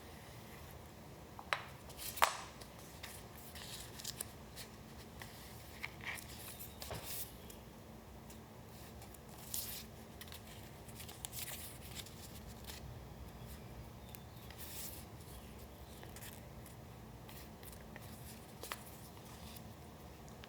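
Paper being handled for a collage: scattered soft rustles and light clicks at irregular intervals, the sharpest pair about a second and a half to two seconds in.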